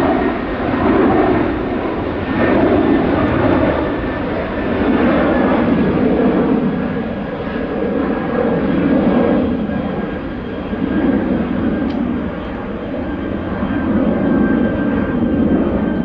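Jet airliner engines running loud: a dense rumble that swells and fades every couple of seconds, with a faint steady high whine running through it.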